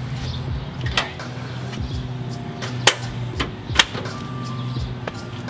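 A Toyota Tacoma pickup's tailgate being swung up and shut, giving a light knock about a second in and two sharp clunks near three and four seconds in. Low, steady background music runs underneath.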